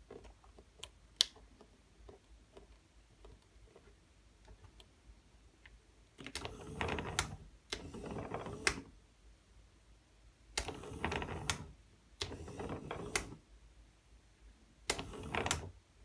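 Small 200 rpm DC gear motor whirring as it drives a plastic rack and pinion, sliding a door-lock bolt in five short runs of about a second each. Before the runs there are a few faint clicks, with one sharper click about a second in.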